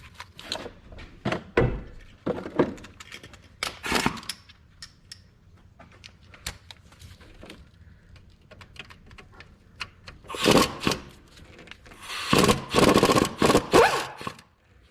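Clicks, knocks and scraping of hands and tools working a rust-stiffened electrical plug off a car alternator, with longer loud bursts of scraping and rattling near the end.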